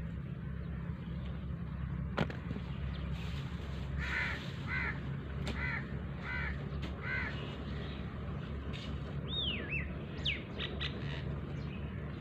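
A crow cawing five times in a row, with a few higher whistled bird chirps near the end, over a steady low engine hum.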